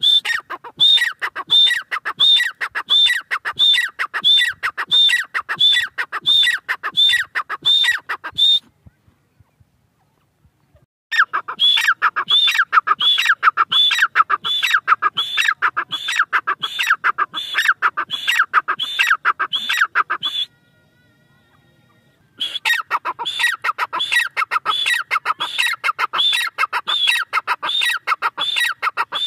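Female grey francolin (teetar) calling over and over, about two calls a second. The calling comes in three long runs, broken by two pauses of about two seconds, about a third and about two thirds of the way through.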